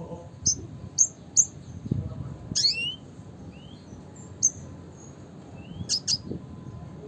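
Red siskin calling: short, sharp, high chirps, three in the first second and a half and more near the middle and end, mixed with a few quick notes that slide upward in pitch.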